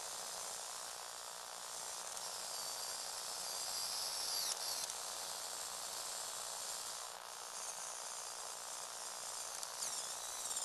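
Small electric motor and plastic gears of a Lego Technic power shovel model whirring, a high whine rising and falling in pitch over a steady hiss.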